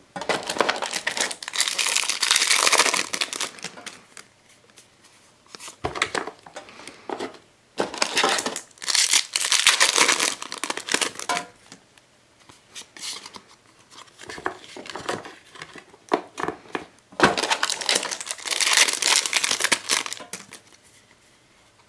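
Foil Yu-Gi-Oh booster-pack wrappers crinkling and being torn open by hand, in three long bursts of rustling with softer crinkles between.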